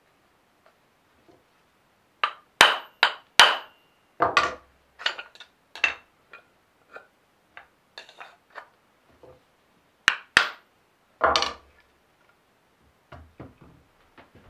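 Small hammer tapping a traditional wooden hand plane to set its blade and wedge: a series of sharp knocks in two clusters, some with a short metallic ring, then a few lighter taps near the end.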